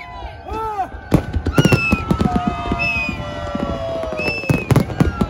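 Fireworks display: a dense string of bangs and crackles beginning about a second in, with long whistles sliding slowly down in pitch over them.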